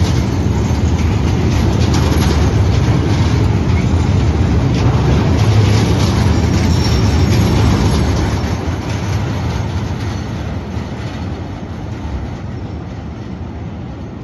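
Freight train of tank wagons passing at speed: a loud steady rumble and clatter of wheels on rails. It fades away from about eight seconds in as the end of the train passes and recedes.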